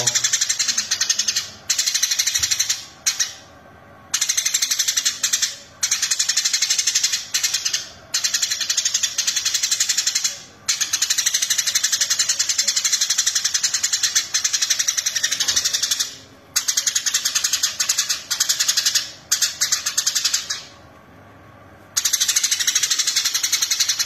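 Eurasian tree sparrow in full, vigorous song, chattering in long, rapid, high-pitched runs of a few seconds each. Short pauses break the runs, with longer ones about three seconds in and near the end.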